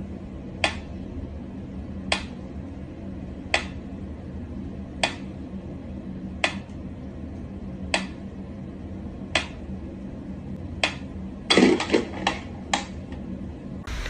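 Mechanical pendulum metronome ticking slowly and evenly, one sharp tick about every second and a half. Near the end comes a short burst of louder, irregular knocks and clicks.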